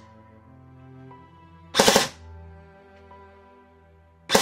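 Airsoft M4 electric gun (AEG) firing three-round bursts under a burst-mode MOSFET: one quick burst of three shots about two seconds in, and another starting near the end. Each burst stops after three shots, as the MOSFET cuts the gearbox motor.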